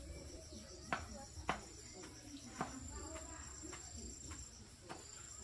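Insects chirping and droning steadily at a high pitch, the pulsing calls of crickets. Three sharp knocks stand out, about a second in, half a second later, and again a second after that.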